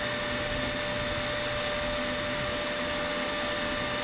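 Vacuum cleaner running steadily with a constant whine, its hose sucking up debris from the carpeted boat seat platform after bolt holes were drilled.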